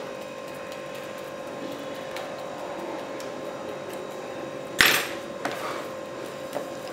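Marinated chicken pieces being handled by hand in a plastic tub over a steady hum, with one sharp knock against the tub about five seconds in and two lighter taps after it.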